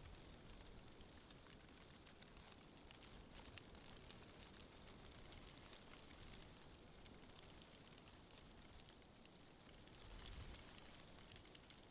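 Faint wind: a soft, even hiss with tiny scattered crackles, swelling into a low gust about ten seconds in.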